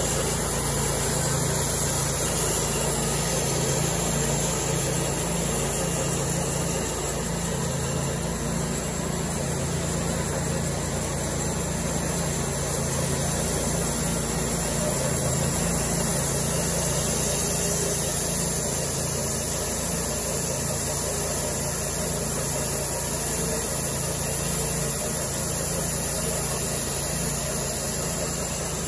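Cook's Saw MP-32 thin-kerf bandsaw mill running steadily under load, its engine and band blade sawing lengthwise through a large log.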